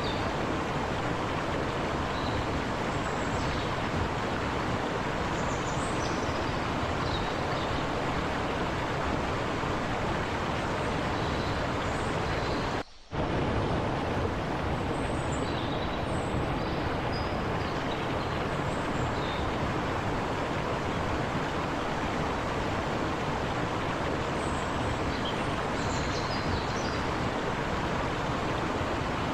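Forest river rushing steadily over rocks, with faint high bird chirps here and there. The sound cuts out for a split second about 13 seconds in.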